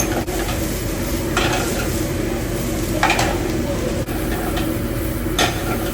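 Steady restaurant background noise with a low hum, broken by a few short clatters of dishes or cutlery.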